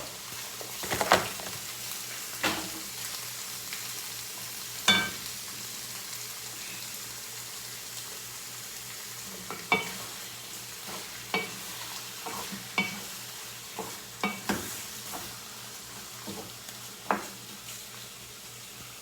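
Chicken and pork pieces sizzling steadily as they sauté in hot oil in a pan, with a utensil clinking against the pan every second or few as they are stirred, some strikes ringing briefly.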